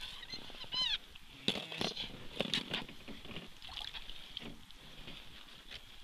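Ice-fishing handling sounds: a quick run of short squeaks about a second in, then scattered knocks and rustles of gear and clothing as a perch is hauled up through the ice hole and taken in hand.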